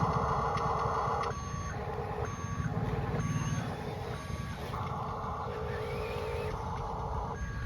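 Remote-control construction truck's reversing beeps: short electronic beeps about once every second for a few seconds, starting just over a second in, over the steady hum of its motor or sound module.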